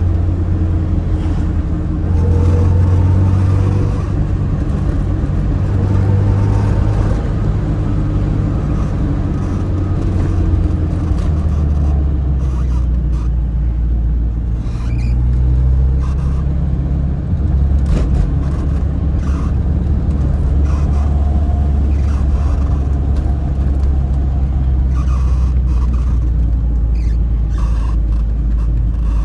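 Tofaş car's four-cylinder engine and exhaust heard from inside the cabin while driving, the revs rising and falling as the car pulls along and changes speed.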